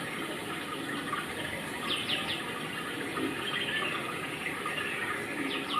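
Steady rush of running water with a bird calling: a quick run of three falling chirps about two seconds in and again near the end.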